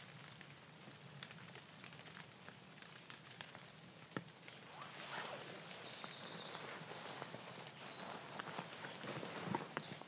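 Rain falling on the tree canopy and the lough: a steady patter with scattered sharp drips, getting louder about halfway through. A bird sings high trills over it in the second half.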